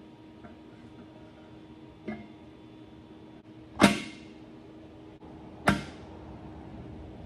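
Metal parts of a billet aluminium three-piece wheel knocking together as the painted wheel center is fitted into the polished rim halves: a light tap about two seconds in, then two sharp clanks with a short ring, near four seconds and again near six, the first the loudest.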